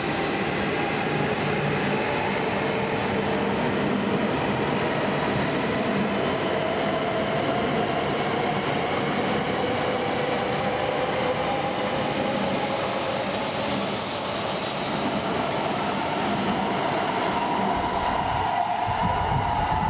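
E6 and E5 series Shinkansen cars pulling out and gathering speed past the platform: a steady rush of the passing train with a faint motor whine rising slowly in pitch as it accelerates. Near the end a low rumble comes in.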